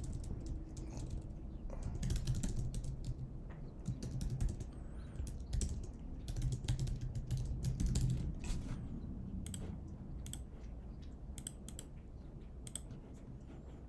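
Typing on a computer keyboard: irregular runs of keystrokes with short pauses, over a low steady hum.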